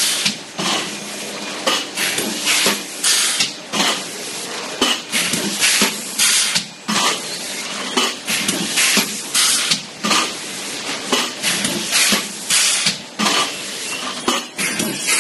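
Disposable plastic cup making machines running: repeated bursts of hissing with clatter, about one or two a second, unevenly spaced, over a steady mechanical background.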